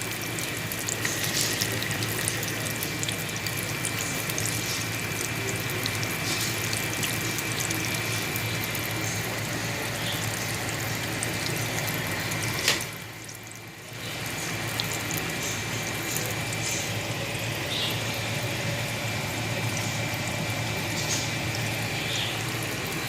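Breaded green tomato slices frying in hot oil in a pan: a steady sizzle with scattered pops and crackles. It briefly drops away just past halfway, then carries on.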